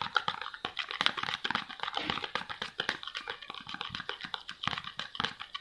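Metal spoon stirring thick ghee in a small plastic tub, scraping and clicking against the tub's sides and bottom in a quick, irregular run of taps.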